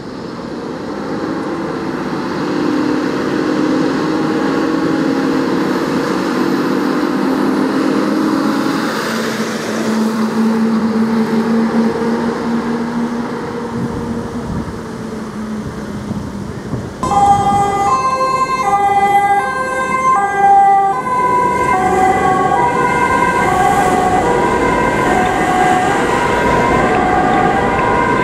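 A German fire engine on an emergency run: the truck drives off with its engine and road noise growing louder. About 17 s in, a two-tone Martinshorn siren starts, switching between a high and a low note less than a second apart.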